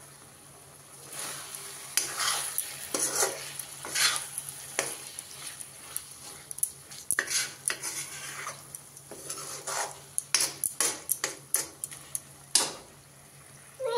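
Steel spoon stirring and scraping spiced pumpkin pieces around a metal kadai, with the oily masala sizzling under it. The strokes come in irregular scrapes and grow quicker and denser towards the end.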